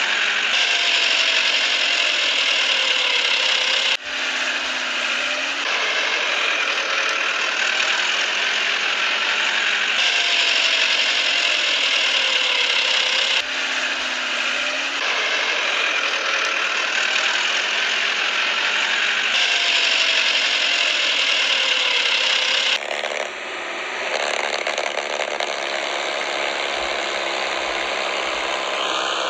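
Small electric drive motors and gearboxes of RC toy tractors whirring steadily under load while one tows the other. The sound dips briefly a few times and changes character near the end.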